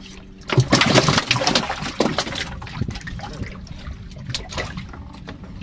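Water splashing and trickling beside a small wooden canoe. It is loudest for about two seconds near the start, followed by lighter dribbles and small knocks.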